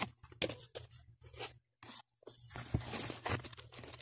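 Cardboard box and plastic wrapping being handled: irregular rustling and scraping with a few sharp clicks, broken by a brief silent gap about halfway through.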